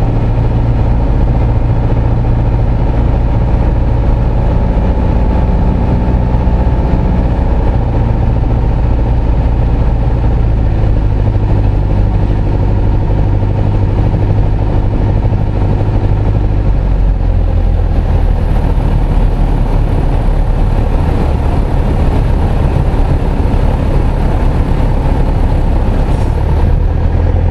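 Piper PA-28's single piston engine and propeller running steadily as heard inside the cabin on final approach. About two-thirds of the way in the engine note drops slightly as power is eased back for the landing.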